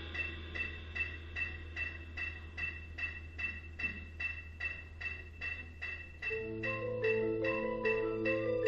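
A steady ticking at about three beats a second, then about six seconds in a marimba comes in with sustained low notes.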